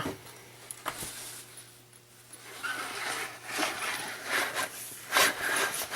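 Canvas gun sleeve rustling and scraping as a Daisy Red Ryder BB rifle is slid down inside it, with a single click about a second in and the rubbing growing busier in the second half.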